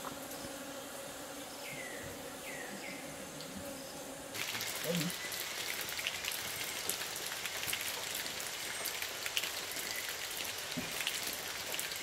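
Light rain pattering in forest: a steady hiss dotted with fine crackling drops, starting abruptly about four seconds in. Before that comes a quieter stretch with a faint hum and a few short falling chirps.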